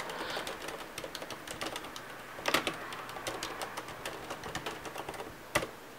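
Typing on a Ducky Shine 7 mechanical keyboard with Cherry MX Silent Red switches: a quick, steady run of quiet key clicks, with a couple of louder key strikes about two and a half seconds in and near the end.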